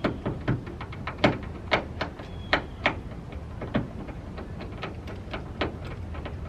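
Irregular sharp clicks and taps of a screwdriver and metal latch hardware being worked on the underside of a Honda S2000 hardtop, a few a second at uneven spacing.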